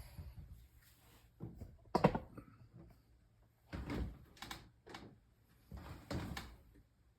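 PEX pipe and a SharkBite push-fit fitting being handled and pushed together: scattered knocks, clunks and rubbing, with one sharp knock about two seconds in and further clusters near four and six seconds.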